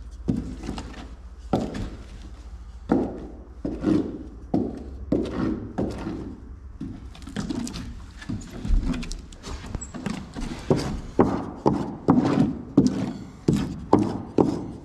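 A wooden block scraping and slapping over glue-wet plywood as wood glue is spread out, in repeated short strokes that come faster in the second half, about two or three a second.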